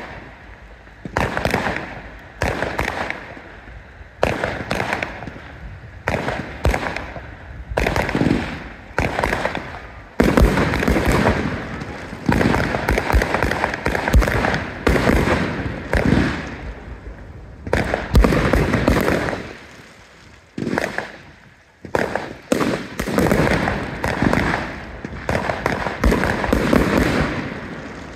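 Fireworks being launched from the ground and bursting overhead: a rapid string of bangs and crackles, densest from about ten seconds in and again over the last few seconds, with a short lull in between.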